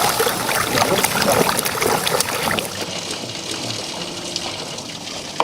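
Water trickling and splashing, busy with small splashes for the first couple of seconds, then softer.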